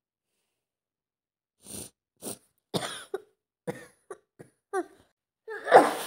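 A person with a head cold coughing: a string of short coughs starting about two seconds in, then a louder, longer burst near the end.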